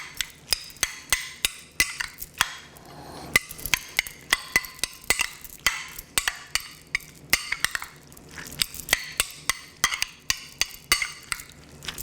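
A spoon clinking and knocking against a bowl, with quick irregular strikes several times a second, as the ginger-peach chutney is stirred.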